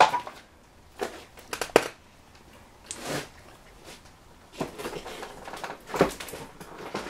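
Footsteps crunching and scraping over debris on the floor, a few irregular steps with short clicks between them.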